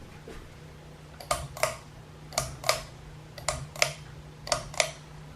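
Ceiling fan's pull-chain switch pulled four times, each pull giving a pair of sharp clicks about a third of a second apart, roughly one pull a second, over the steady low hum of the running fan motor.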